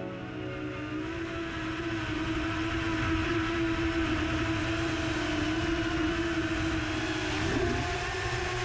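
7-inch FPV quadcopter's Emax Eco II 2807 motors and three-blade 7-inch props whining at a steady throttle over rushing air. About seven and a half seconds in, the pitch dips briefly and then comes back a little higher.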